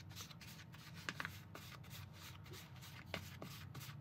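Small plastic spoon stirring and scraping a dry, crumbly sugar-cookie mix in a small plastic mixing bowl: faint, quick, scratchy strokes, a few of them sharper. The mix is only just moistened with water and not yet clinging together.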